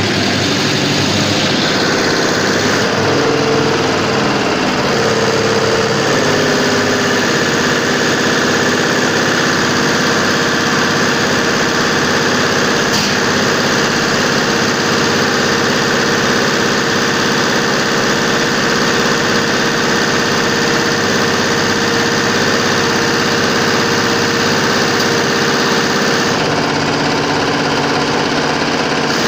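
Diesel fuel-injection pump test bench driving an MTZ-80 (D-240) in-line injection pump, with the pump's injectors firing into the measuring glasses: a steady mechanical hum. Its pitch steps up and down in the first few seconds and changes again near the end as the governor is checked at different speeds.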